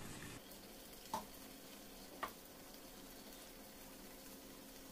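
Faint steady sizzle of tomato masala cooking in a non-stick pan, with two short soft taps about a second apart as cooked basmati rice is tipped in.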